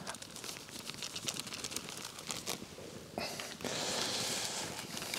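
Onions and spices sizzling and crackling in hot oil in a Dutch oven. About three seconds in, the frying gets louder and more hissing.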